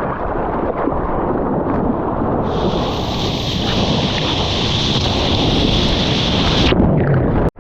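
Wind buffeting the microphone over ocean surf, with a steady hiss of rushing whitewater from about two and a half seconds in until near the end.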